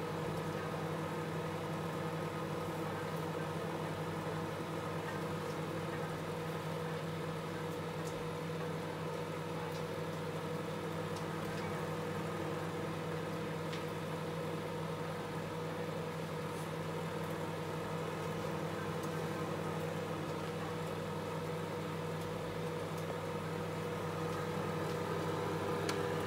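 Microwave oven running: a steady electrical hum with the whir of its fan, growing a little louder near the end.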